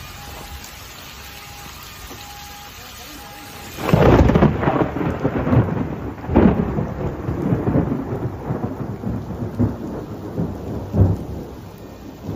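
Heavy rainstorm: steady rain with loud, irregular rumbling that sets in about four seconds in and goes on in uneven surges. In the quieter opening, four short faint beeps sound about a second apart.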